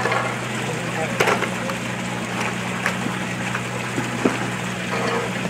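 Aquaphalt pre-mixed cold-patch asphalt being tipped out of a plastic bucket into a pothole, the loose stone mix sliding and clicking as it lands, over a steady low hum.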